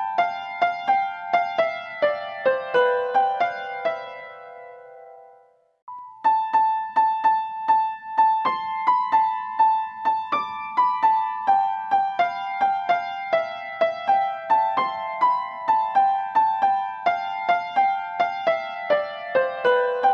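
Background music: a gentle piano tune of evenly paced single notes, which fades out about four seconds in, breaks off briefly, and starts again about six seconds in.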